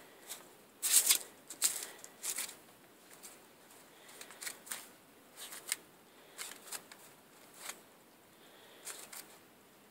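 Footsteps crunching in snow, a run of irregular short scrunches, loudest and closest together in the first two and a half seconds, then fainter and more spread out.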